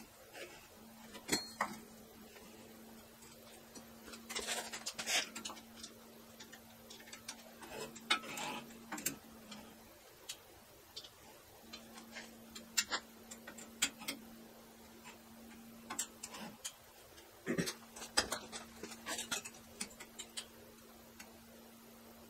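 Irregular small metal clicks, taps and brief scrapes as a stiff sliding cut-depth ruler on a steel sawmill end frame is loosened with a hand tool and slid along it, over a faint steady hum.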